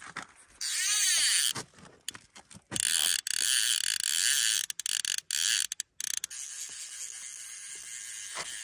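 Fly reel's click-and-pawl ratcheting loudly in three long stretches while a big trout is being played on the line.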